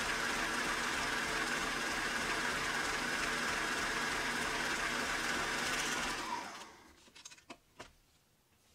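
Electric stand mixer motor running steadily at speed, beating cheesecake batter of cream cheese, sugar and eggs in a stainless steel bowl. About six seconds in it is switched off and winds down, falling in pitch, followed by a few light clicks as the mixer head is tilted up.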